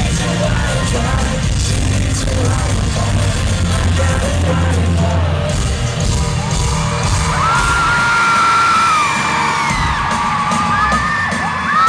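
Live pop-rock band music heard from the arena floor, with heavy bass and drums. After about seven seconds the bass drops out and long, high-pitched screams from the crowd become the loudest thing.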